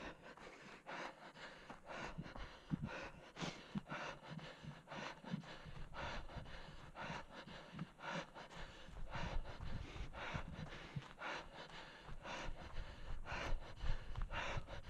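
A runner's hard panting breaths, about two a second, with footfalls on dry forest ground.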